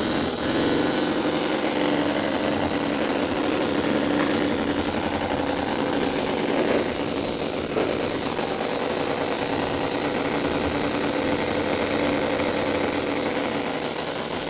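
CISON FG-VT9 9cc four-stroke V-twin model petrol engine running steadily, freshly started after heavy priming.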